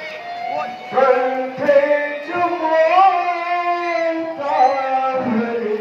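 A voice singing a devotional prayer song in long held notes that waver and bend, with musical accompaniment.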